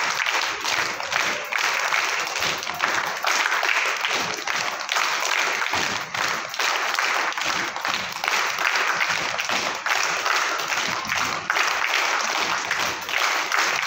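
A large group of children clapping their hands in a drill, many claps running together into a dense, continuous patter.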